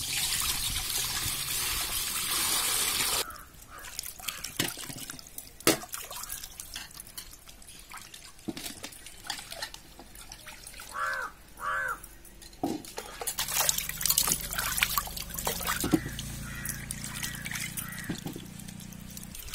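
Water poured from a pot into an empty aluminium kadai, running for about three seconds. Then comes the sound of sweet potatoes being washed by hand in a pot of water: sloshing, with scattered knocks and clinks.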